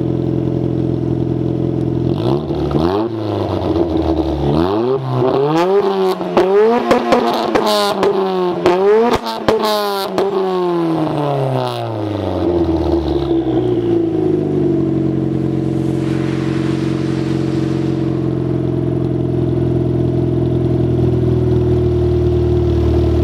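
A 1994 Mazda MX-5 with a 1.8 turbo engine and straight-through exhaust, idling and then revved repeatedly while standing still. About two seconds in the revs climb into a run of quick blips with sharp pops between them, then drop back to a steady idle about twelve seconds in.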